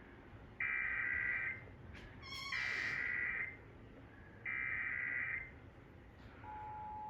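Emergency Alert System header: three one-second bursts of screeching digital data tones with short pauses between them. Near the end, the steady EAS attention tone begins.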